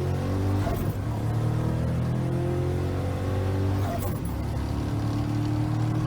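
Twin-turbocharged 351 Windsor V8 in a Ford Ranger at full throttle down the drag strip, its pitch climbing steadily through the gears. There are two brief breaks for upshifts, about a second in and about four seconds in.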